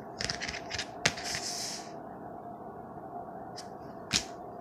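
Rigid plastic card holders (toploaders) clicking and sliding as cards are handled and set down on a stack: a quick run of light clicks, a sharp click with a short scrape about a second in, and a louder single click near the end.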